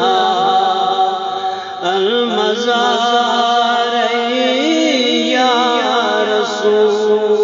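A man singing a Kashmiri naat, a devotional song, in a wavering, ornamented melody over a steady drone.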